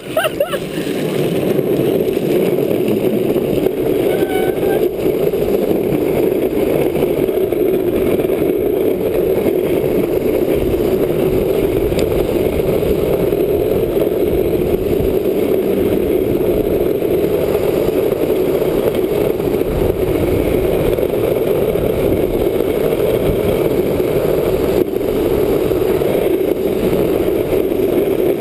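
Steady, loud rushing noise of a drift trike rolling and sliding downhill on a wet road, with wind on the microphone.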